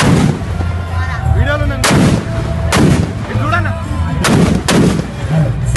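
Firecrackers packed into a burning Ravana effigy going off: about six loud single bangs at uneven intervals, each a sharp crack.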